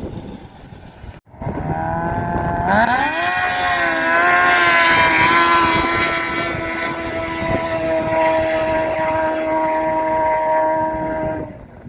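A racing engine revs up sharply a few seconds in, then holds at high revs with a steady pitch before dropping away near the end. Just over a second in there is a brief break in the sound.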